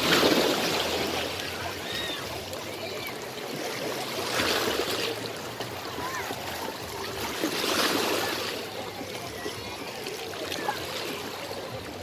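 Small sea waves washing in over seaweed-covered rocks at the water's edge, swelling three times about three to four seconds apart.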